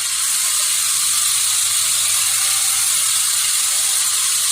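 Steady, high-pitched hissing noise of sawmill machinery running, with hardly any low rumble.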